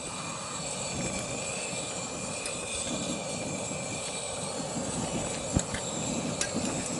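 Steady roar of a lit gas-canister camping stove burner, with a couple of light knocks and clicks of tongs against a metal plate near the end.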